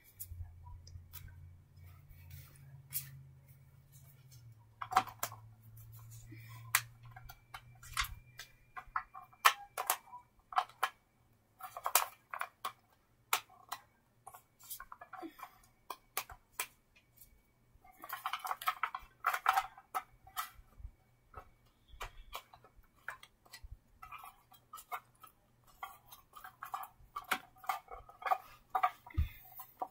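Scattered clicks, taps and rustles of small objects (cards and little cardboard boxes) being handled by hand, with denser bunches of rustling about eighteen seconds in and again near the end. A low hum sits underneath and fades out about a third of the way in.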